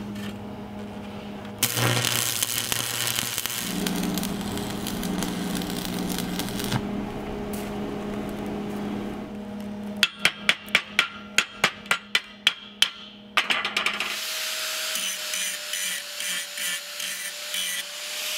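Stick-welding arc with a 7014 rod crackling and hissing steadily for several seconds. Then a chipping hammer knocks slag off the fresh weld in a quick run of about a dozen sharp metallic strikes, and an angle grinder starts up with a steady whine.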